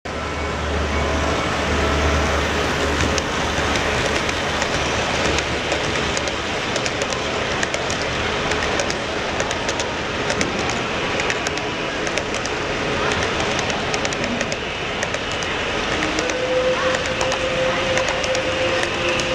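HO scale model freight train rolling past, a steady rumble with its wheels clicking irregularly over the rail joints.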